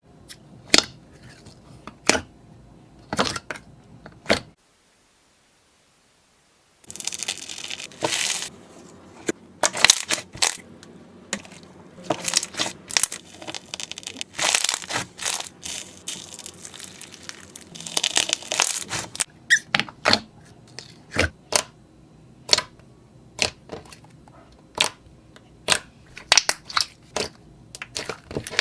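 Slime being squeezed and poked by hand, giving many sharp clicks and pops and a few longer stretches of dense squishing. The sound drops out for about two seconds a few seconds in.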